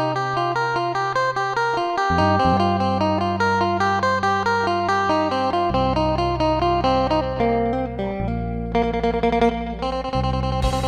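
Isan phin (Thai plucked lute, amplified with effects) music: a fast plucked melody over held low bass notes that change every few seconds. Percussion comes in near the end.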